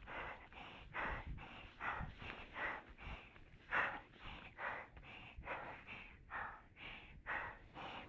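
A person breathing hard and fast, about two breaths a second, out of breath from the exertion of hiking.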